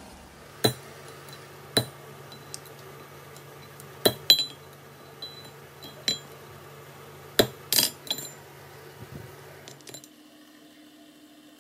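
Ball-peen hammer tapping a punch through the holes of a steel toggle-clamp stop to mark hole positions on the shim beneath: about seven sharp metallic taps at uneven intervals, two of them in quick pairs. About ten seconds in, these give way to a quieter steady hum of a drill press motor running.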